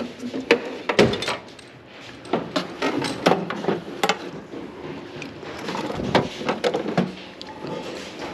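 Irregular knocks and clinks of hard objects, such as tools or parts, being handled and set down, with the sharpest knocks about a second in and near the middle.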